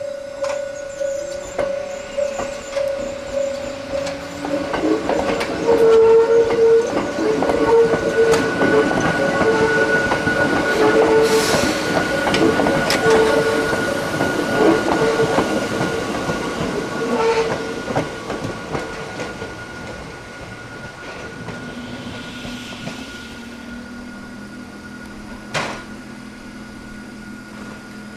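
Hakone Tozan Railway electric train passing close by: wheels clattering and squealing, loudest for about a dozen seconds from the window's early part. The train then fades to a low hum.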